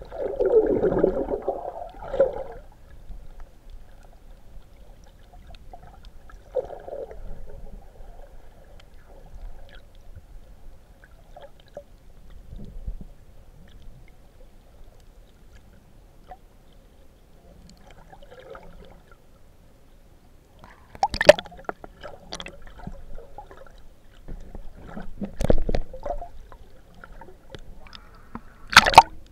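Muffled water noise heard through a submerged action camera: a loud gurgle and slosh at the start, then quiet underwater hiss. It is followed by three sharp splashing hits in the second half, the last as the camera breaks the surface.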